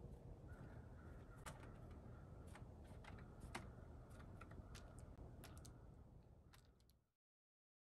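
Sparse, irregular light clicks and taps as a blue jay picks at seeds and nuts in a small metal dish on a wooden table.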